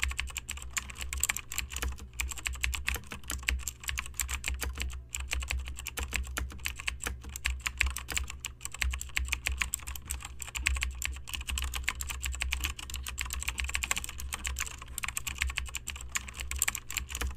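Fast, continuous typing on a laptop keyboard: a dense run of key clicks over a steady low hum.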